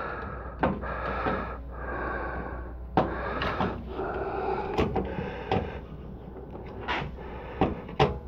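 Screwdriver working a motherboard screw inside a steel PC case: scattered sharp clicks and knocks, about eight, of the tool and hands against the screw and the metal, over a faint rustle of handling.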